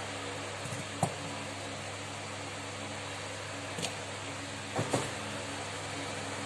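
Steady electrical hum of a fan in a small room, with a few light clicks and taps from small phone parts being handled during reassembly: one about a second in, one near four seconds and a pair near five seconds.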